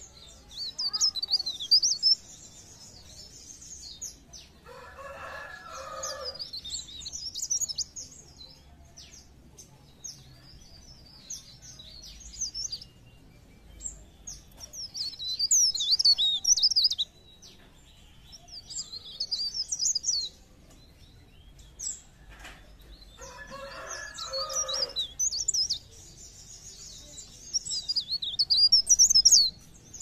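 Caged leaf warbler (cikrak daun, kept as 'pare pare') singing: short bursts of quick, high twittering every few seconds. Twice a lower, rougher call of about a second and a half cuts in.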